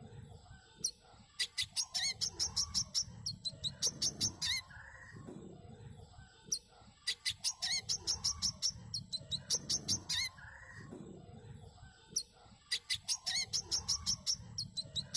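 Brown-throated sunbird song: three phrases of rapid, sharp, high chirping notes, each lasting about three and a half seconds, with short pauses between.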